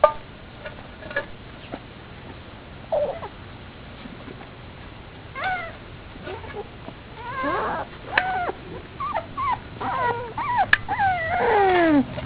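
Four-week-old pit bull puppies whimpering and yelping: a few short cries early on, then a run of high whines that bend up and down, coming thick and fast in the last few seconds.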